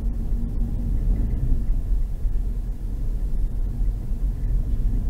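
Hyundai i30 driving on the highway, heard from inside the cabin: a steady low rumble of road and engine noise.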